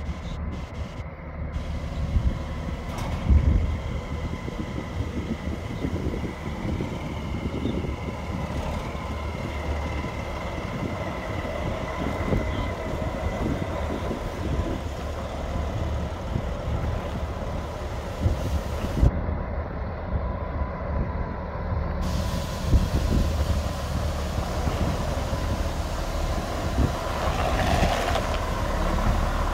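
Freightliner Columbia semi truck with its 12.7-litre Detroit Diesel Series 60 engine, driving on a road test after repair. A steady engine and road rumble, with frequent knocks and rattles.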